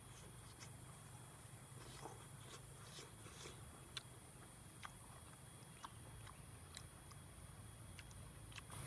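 Faint chewing and biting close to the microphone: a scattered run of small sharp clicks and crunches, one or two a second, over a low steady hum.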